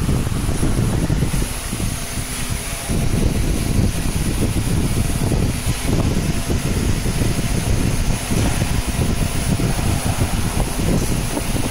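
20 W fiber laser marking machine running: a steady low rumbling hum with a thin high hiss above it, easing briefly about two seconds in.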